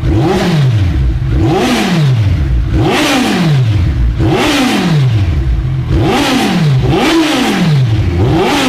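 Kawasaki Z1000SX (Ninja 1000) 1043cc inline-four with a MIVV aftermarket twin-outlet exhaust, revved in place: about seven throttle blips in a row, each a quick rise and fall in pitch.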